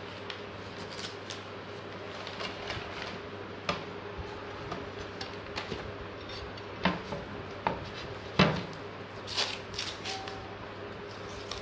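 Masking tape being handled and pressed down onto a glass sheet: scattered light taps and clicks, and about nine seconds in a short ripping rasp as a strip is pulled off the roll. A steady low hum runs underneath.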